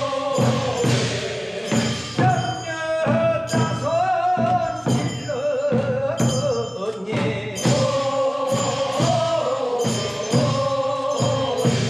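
Korean funeral bier-bearers' song (sangyeo sori): a group of men singing a slow chant, with regular percussive strikes keeping the beat of the procession.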